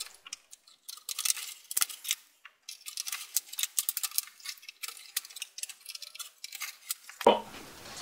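Quick plastic clicks and ticks of DDR3 RAM sticks being handled and pressed into a desktop motherboard's memory slots, the slot latches snapping. A heavier thump near the end.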